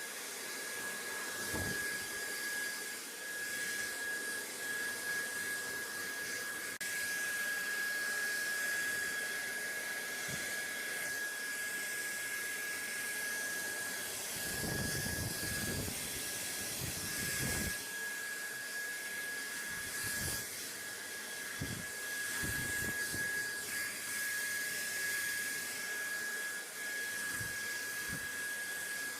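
Steady white-noise hiss with a thin, steady high whine running through it, and a few brief low rumbles, the longest about halfway through.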